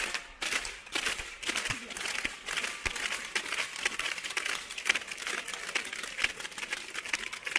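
Spectators clapping: a dense, irregular patter of sharp claps and slaps, several a second.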